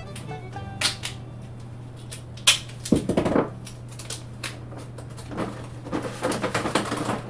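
Black duct tape being handled, pulled and pressed onto a foam cooler: a sharp click about two and a half seconds in, a short spell of crackling soon after, and more crackling through the last couple of seconds, over a steady low hum.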